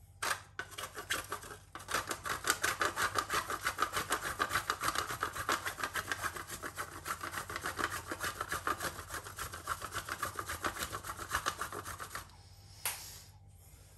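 A bar of chocolate being grated by hand on a grater: quick, even scraping strokes that stop near the end.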